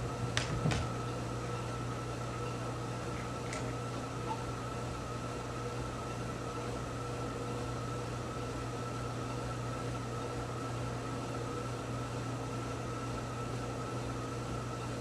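Steady mechanical room hum with a thin high whine running under it, with a few light clicks or taps about half a second in and again a little after three seconds.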